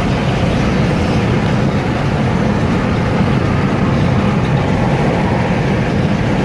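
Steady, loud rumble of a moving vehicle, unbroken and strongest in the low end.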